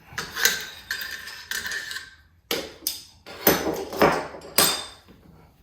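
AR-15 bolt carrier group sliding out of the upper receiver with a metallic scrape and ring, followed by several sharp metal clacks as the rifle parts are handled and set down.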